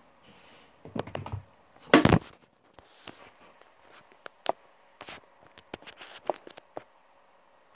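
Scattered handling noises as toy packaging is opened: a rustle, a louder knock about two seconds in, then light clicks and taps.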